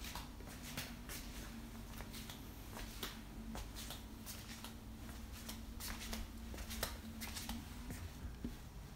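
Irregular light clicks and taps, a few a second, over a faint steady hum: handling and footstep noise from a handheld camera being carried around a wooden room.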